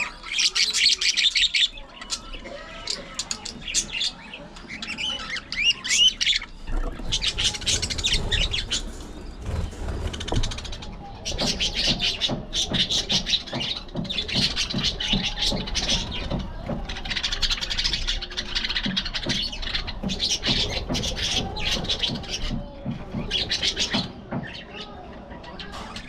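Budgerigars chirping and warbling in rapid, overlapping bouts, the chatter of several birds at once, with short pauses between bursts.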